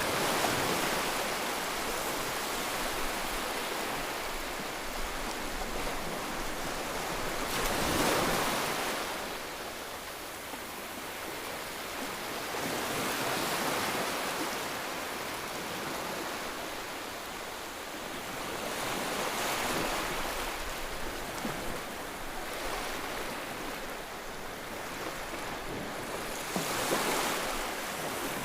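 Sea waves breaking and washing in, the rush of water swelling and falling back about every five to six seconds.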